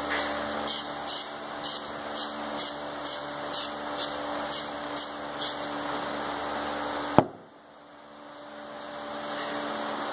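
Steady mechanical hum. Over it come about a dozen short, scratchy strokes at roughly two a second, then a single sharp click about seven seconds in, after which the hum briefly drops away.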